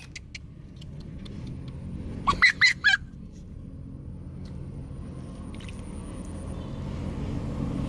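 Beagle puppy giving a short wavering whine of a few notes about two and a half seconds in, over a steady low rumble that slowly grows louder.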